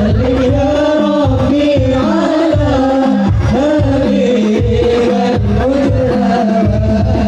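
Hadrah sholawat performance: a lead male voice sings long, wavering, ornamented notes in Arabic devotional style into a microphone, over the low beat of rebana frame drums.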